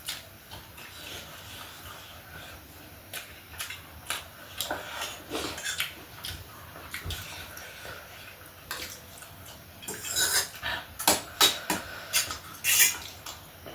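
Close-miked eating: wet chewing, smacking and slurping of spicy noodles and fried snacks, in short irregular bursts that grow busier about ten seconds in, with light clinks of cutlery on dishes.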